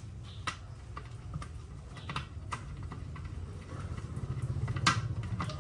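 Irregular light clicks and taps over a low, rapidly pulsing hum that grows louder near the end.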